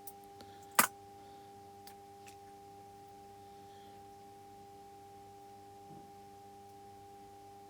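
A faint steady hum made of several held tones. One sharp click comes just under a second in, and two light ticks follow about a second later.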